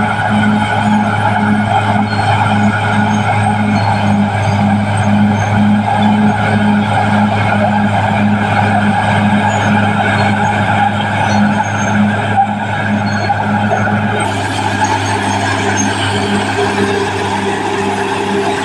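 Caterpillar D6R XL bulldozer's diesel engine running steadily under work, with a pulsing drone about twice a second. The tone shifts about fourteen seconds in.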